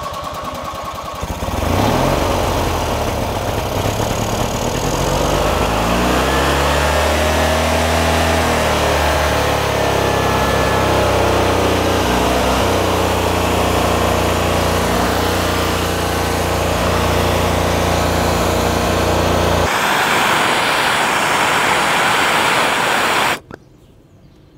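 Starter cranking an 18 hp Briggs & Stratton riding-mower engine, which catches about a second and a half in, revs up and then runs steadily; this is its first start after its carburetor was cleaned of water. The engine's low note drops out about 20 s in, leaving a rushing hiss that cuts off abruptly a few seconds later.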